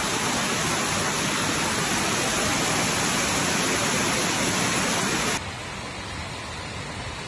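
Heavy downpour on a flooded street: a loud, steady hiss of pouring rain and running floodwater. About five seconds in it cuts abruptly to a quieter, duller hiss.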